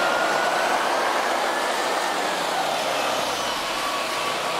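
Articulated city bus driving past and pulling away on a wet street: steady engine and tyre noise, with a faint whine that rises and then falls.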